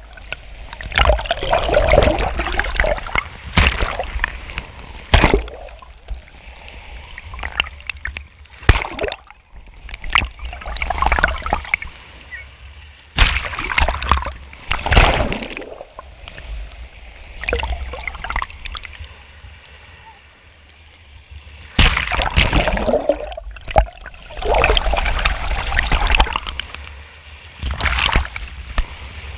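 Small sea waves breaking and sloshing over a camera held at the waterline. The splashing comes in irregular surges every few seconds, with quieter gurgling lulls between.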